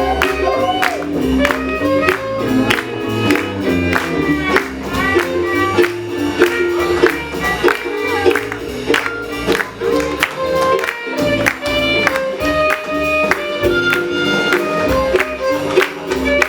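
Live small jazz band playing an upbeat tune, over a quick, irregular run of sharp tap-shoe clicks.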